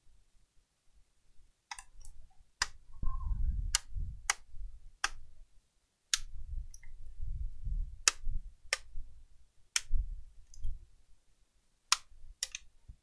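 Laptop keyboard being pressed down into its palmrest: about a dozen sharp, irregular plastic clicks as it is seated, over low rubbing and thumping of hands on the plastic case.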